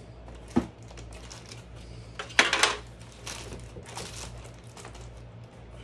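Board game pieces being handled: a sharp click about half a second in, then a louder clatter of pieces knocking together around the middle, with lighter taps after.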